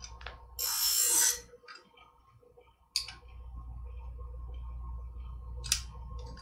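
A medical shear blade drawn once, lightly, across the hone of a Twice as Sharp scissor sharpener: a brief hiss about half a second in. Later, two sharp clicks as the metal clamp arm holding the shear is moved.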